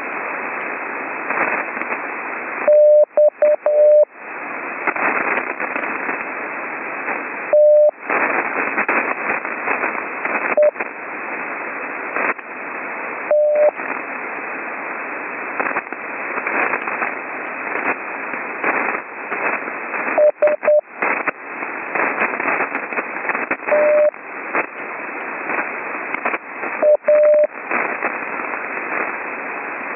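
Slow Morse code: a single mid-pitched CW tone keyed in short dits and longer dahs, spaced seconds apart, sending practice letter groups. Between the characters there is a steady hiss of rough HF band noise, heard through a narrow radio receiver passband, which drops out whenever the tone sounds.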